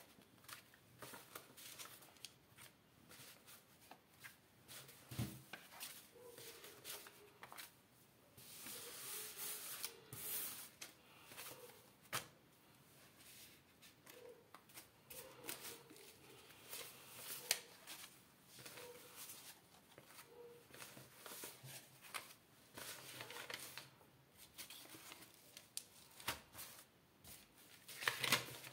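Paper euro banknotes being counted by hand and dropped onto a pile: a run of faint flicks, rustles and soft slaps of the notes, with louder rustling about nine seconds in and near the end.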